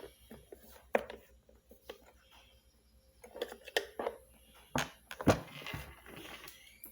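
Irregular clicks and knocks of parts and tools being handled while a Miele vacuum cleaner is taken apart, with the loudest knock about five seconds in.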